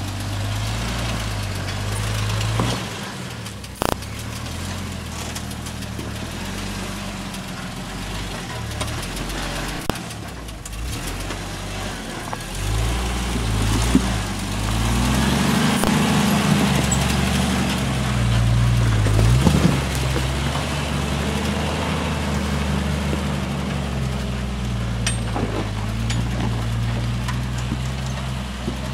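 Jeep engine running at low speed while rock crawling, rising in pitch under throttle about halfway through and then settling back. There is a single sharp knock about four seconds in.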